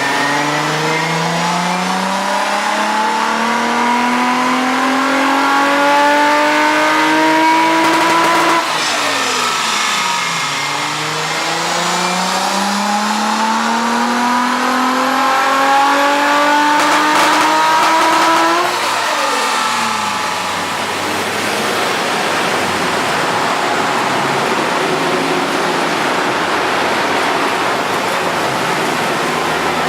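Nissan R33 Skyline's RB25DET turbocharged straight-six pulled through two full-throttle dyno runs: each time the engine note climbs steadily through the revs for about eight seconds, then drops sharply as the throttle is closed. From about twenty seconds in it settles into a steady rushing noise. The car is on the dyno to chase a misfire.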